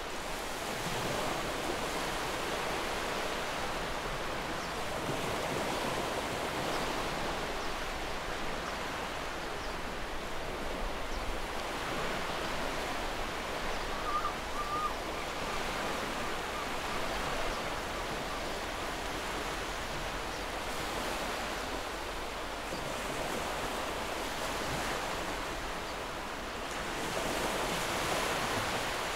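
Ocean surf from a background sound track: a steady rush of waves that swells and eases slowly. A faint short chirp comes about halfway through.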